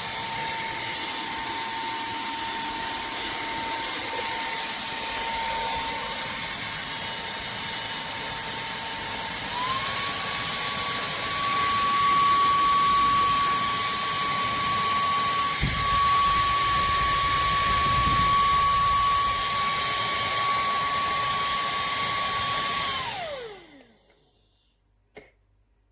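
Cordless handheld vacuum cleaner running, its motor a steady high whine over rushing air. Partway through it is switched to its higher of two speeds and the whine steps up in pitch. Near the end it is switched off and whines down to a stop, with a couple of low knocks in between.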